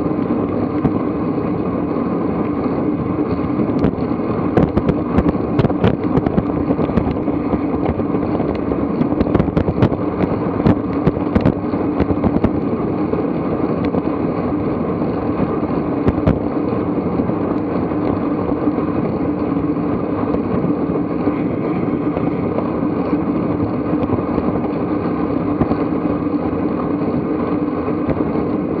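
Steady rush of wind on a bike-mounted camera's microphone and tyre noise as a bicycle rolls along asphalt. A run of irregular sharp clicks and knocks comes through the first half, with one more a few seconds later.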